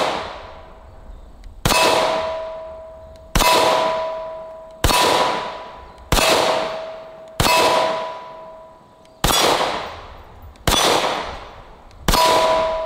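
Ruger-57 pistol firing 5.7x28mm rounds, eight slow, evenly paced shots about one and a half seconds apart. Most shots are followed by a steel target ringing in two tones that fade away over a second or two.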